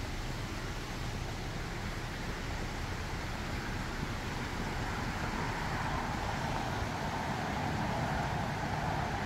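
Steady rushing of the river's falls and rapids below the trail, growing a little louder about halfway through.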